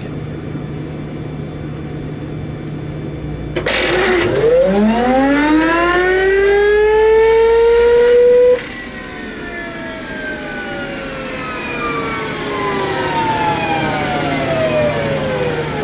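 TFE731-4 turbofan cranked dry by its starter motor. A rising whine begins about three and a half seconds in and cuts off abruptly about five seconds later, then the spool winds down with a long, slowly falling whine. The early cutoff is the fault under investigation: the start sequence shuts off on a timer after 4 to 5 seconds, whatever the engine speed.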